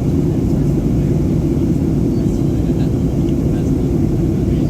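Steady low cabin roar inside a Boeing 737-800 in descent: its CFM56-7B turbofans and the rushing airflow over the fuselage.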